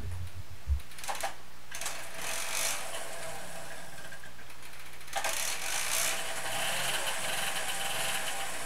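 Solo 712 mofa being pedal-started on its centre stand: a few knocks from the pedals and drive, then its small two-stroke engine catches and runs with a mechanical rattle, getting louder and fuller about five seconds in.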